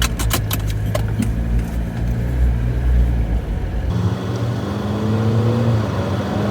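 Jeep Wrangler engine running as the vehicle pulls away, its pitch rising steadily in the second half as it accelerates. A quick run of sharp clicks comes in the first second.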